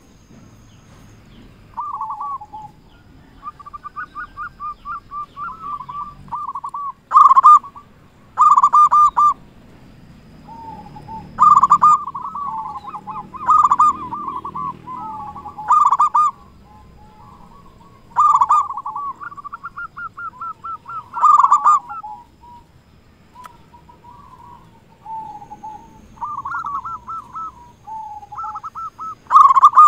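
Local-strain zebra dove (perkutut) in full song: runs of soft, quick staccato notes broken every few seconds by groups of loud, clear coos.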